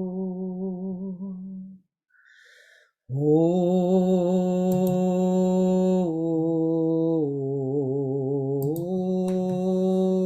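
A woman's voice sounding long, slow sustained tones low in her range, held steady with a slight waver, as in meditative toning. The first tone ends about two seconds in. After a short pause a new tone begins, steps down in pitch twice, and then rises back to its starting note near the end.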